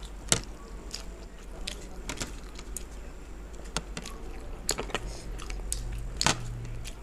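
Mouth sounds of people eating chicken momos: wet chewing with scattered short smacks and clicks, two of them sharper, one just after the start and one near the end.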